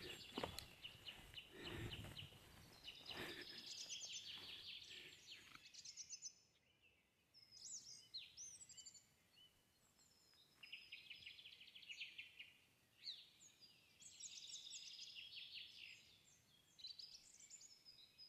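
Faint small birds calling in the forest: quick high trills and short falling chirps, repeated on and off. Some soft rustling in the first few seconds.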